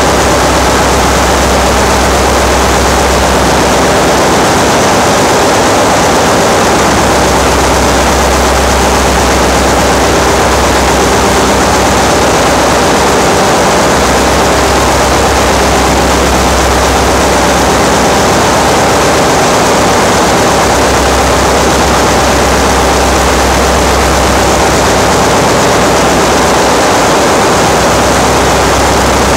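Loud, steady din of running machinery in a ship's engine room. A deep low hum underneath dips away briefly and returns every several seconds.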